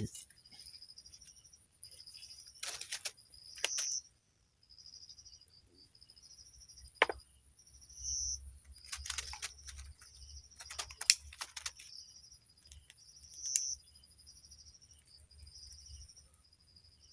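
Insects trilling steadily at a high pitch, swelling to a louder burst about every five seconds, with a few short clicks and rustles of tackle being handled.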